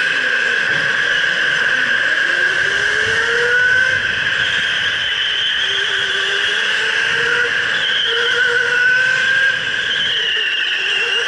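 Electric go-kart running at speed: a motor whine that rises and falls in pitch as the kart speeds up and slows through the corners.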